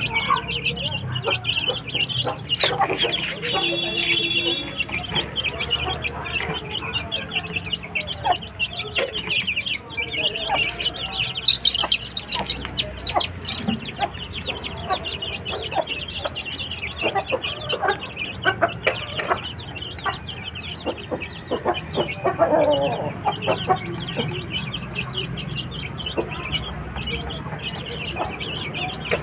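A flock of chickens clucking and calling continuously, many birds at once, with a few louder calls standing out here and there.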